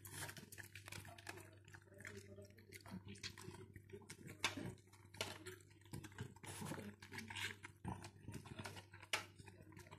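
A dog eating raw meat from a stainless steel bowl: faint, irregular wet chewing and smacking sounds.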